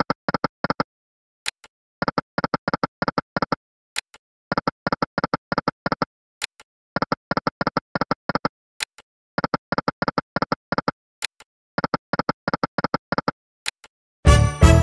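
Sound effects of the EGT Lucky & Wild video slot spinning again and again: a single click starts each spin, then a quick run of short electronic ticks as the reels stop one by one, repeating about every two and a half seconds. A louder burst of game sound comes near the end.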